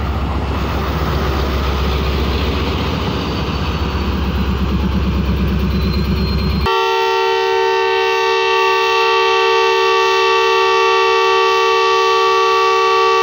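Diesel-electric locomotive (Pakistan Railways ZCU-30) engine running at a standstill close by. After an abrupt break it gives way to the locomotive's multi-tone horn, sounding one long steady blast of about six and a half seconds as the departure whistle.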